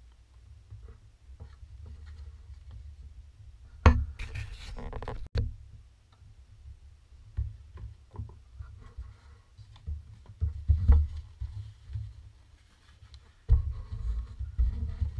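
Unboxing handling noise: a paper manual, polystyrene foam packaging and plastic wrap being moved and rustled over a low rumble, with scattered light clicks. A sharp knock comes about four seconds in, then a second of rustling, and the handling thickens near the end.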